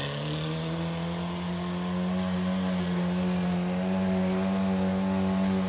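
A raised off-road Audi's engine running under steady load, heard from inside the cabin; its revs and loudness rise slightly about two seconds in and then hold.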